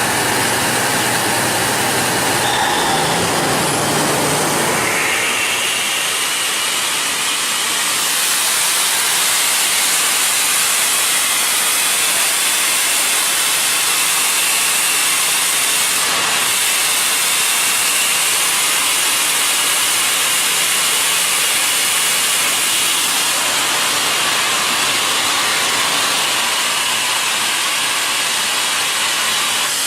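Denair DACY-33/35 diesel portable screw air compressor running loaded after being switched from unloading to loading. About five seconds in, the low engine hum gives way to a loud, steady rushing hiss of air.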